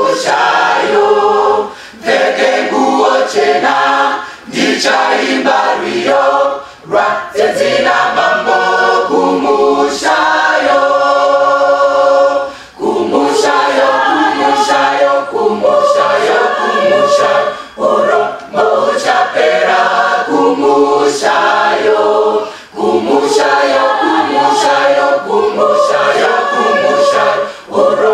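Mixed choir of men and women singing unaccompanied in harmony, in phrases with short breaks between them; about ten seconds in they hold one long chord.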